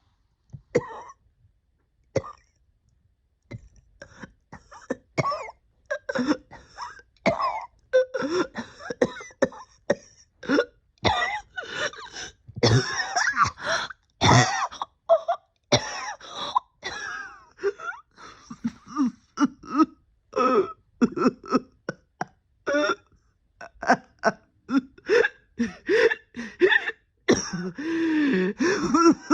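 A person coughing over and over in quick fits, mixed with throat clearing, after a brief pause near the start. It is a persistent cough lingering about a year after an illness.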